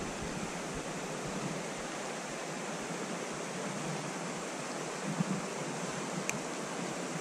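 Steady rush of shallow river water flowing, with a faint click about six seconds in.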